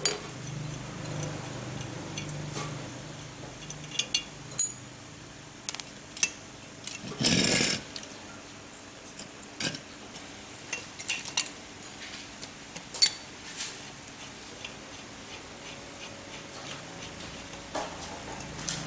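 Irregular metal clinks, taps and knocks of hand tools and a gear puller working on an old air compressor pump's pulley as it is being taken off. A little before the middle comes one louder scraping burst lasting under a second.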